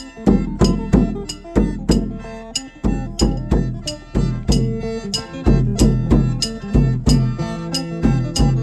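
Isan folk music: phin lute and khaen mouth organ playing over a steady drum beat, with long held chords coming in about halfway through.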